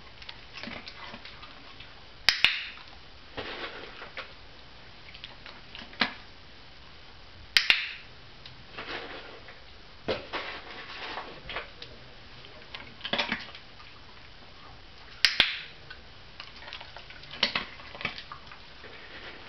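A dog-training clicker sounding three times, each a quick double click (press and release), marking the moments the greyhound touches or moves the cabinet door. Quieter knocks and rustles from the dog at the cabinet come in between.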